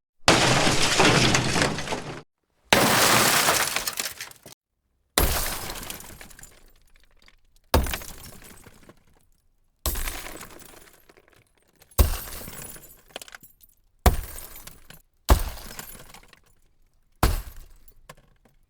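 Car window glass smashing, nine separate smashes in turn, each a sudden crash that trails off over a second or two. The first two are longer and denser; the later ones die away faster.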